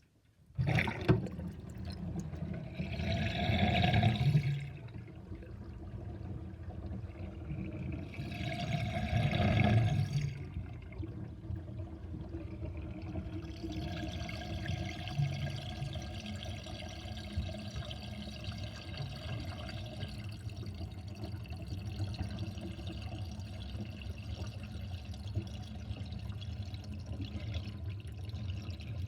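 Water running down a kitchen sink drain with a basket strainer, gurgling loudly. It swells twice in the first ten seconds, then carries on as a steadier gurgling flow.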